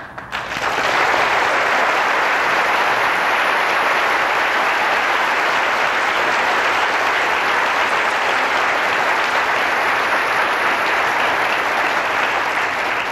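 Applause from a large audience, building up within the first second, holding steady, then fading out near the end.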